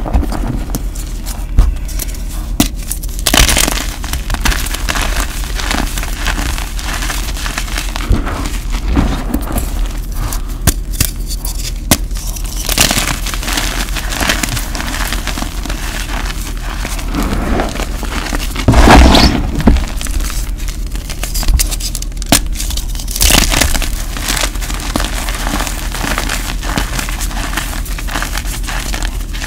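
Hands crushing and crumbling gym chalk: a dense run of soft crunches and crackles as the powder and lumps are squeezed and rubbed, with a few louder crunches, the loudest about nineteen seconds in.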